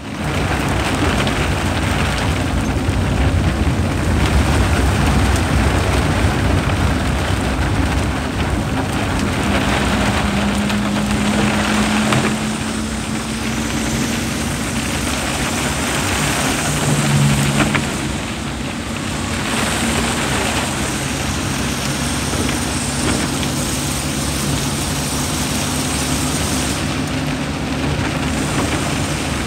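Car driving on a wet road in rain, heard from inside the cabin: steady tyre and road noise with rain on the windshield. A low engine hum runs beneath it and shifts in pitch a few times around the middle.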